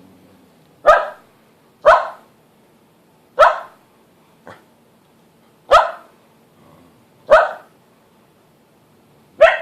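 A pet dog barking in single sharp barks, six loud ones at uneven spacing a second or two apart, with a softer one in between. This is alarm barking set off by a doorbell chime.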